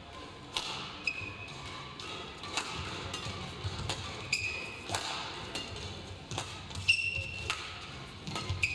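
Badminton rally: sharp racket strikes on the shuttlecock about once a second, with short shoe squeaks on the court floor several times and thuds of footwork.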